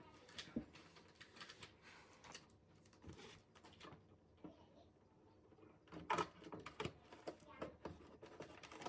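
Scattered light clicks and taps of small plastic toy pieces being handled, with a denser run of sharper clicks about six seconds in.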